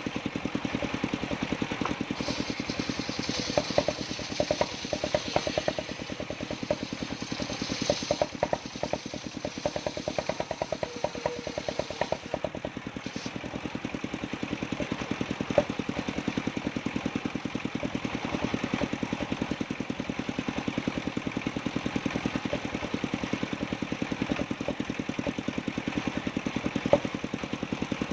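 Engine of a mobile circular sawmill running steadily with a fast, even beat. From about two seconds in to about thirteen seconds in, a higher hiss and an irregular clatter join it as the saw blade cuts through jowar wood. A few sharp knocks follow later.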